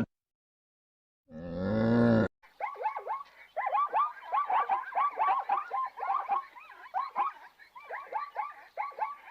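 Animals calling. After a brief silence comes one low call that rises and falls for about a second. Then many short, high calls, each dropping in pitch, repeat several times a second and overlap like a chorus.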